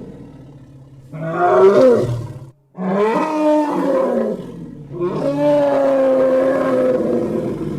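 Custom-made dinosaur roar sound effect for a Saltasaurus: three drawn-out pitched roars. The first starts about a second in, and the last is the longest, sinking slowly in pitch.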